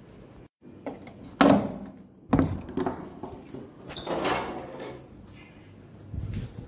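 A door being handled: two loud bangs about a second apart, then a longer scraping sound about four seconds in, and a few soft thuds near the end.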